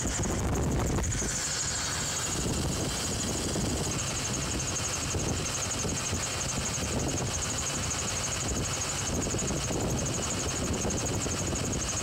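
2005 Chevrolet Silverado's 4.3-litre Vortec V6 running steadily while misfiring on cylinders one and two. The cause is a weak spark reaching cylinder two: an ignition fault.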